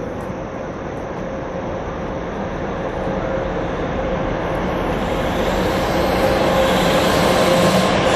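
An HXD1C electric locomotive hauling a passenger train approaches, its rumble growing steadily louder, with a steady whine held above it.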